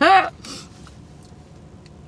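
A short voiced sound from a woman, pitch rising then falling, followed by a brief breath; then only faint mouth clicks.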